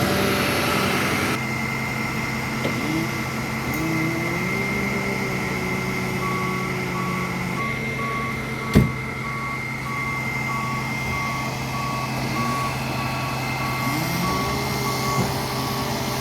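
Fire truck engine running and revving up twice, with its reversing alarm beeping at an even pace from about six seconds in. A single sharp bang about nine seconds in is the loudest sound.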